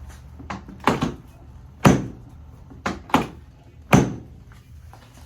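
Chiropractic drop table's drop section snapping down under the chiropractor's thrusts: four loud thunks about a second apart, with a couple of lighter knocks in between.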